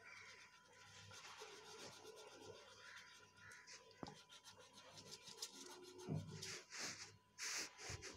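Faint scratchy rubbing strokes of colour being worked onto paper, irregular and getting louder near the end.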